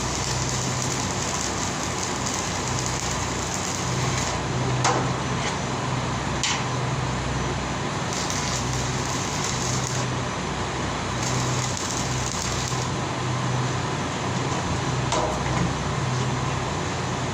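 Steady mechanical hum over a wash of noise, with a few sharp clicks or knocks, about three in all.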